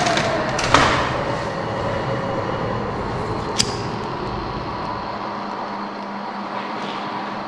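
Steady rumbling noise with a faint hum and a tone sliding slowly down over the first couple of seconds. About a second in there is a knock, and about three and a half seconds in a single sharp click as a disposable lighter is struck and lights.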